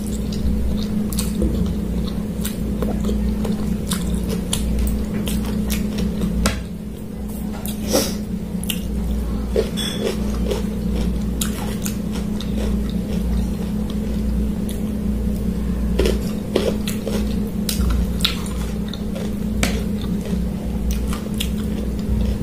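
Close-miked chewing and biting of noodles and papaya salad, with short clicks of a metal fork and spoon against the plate, over a steady low hum.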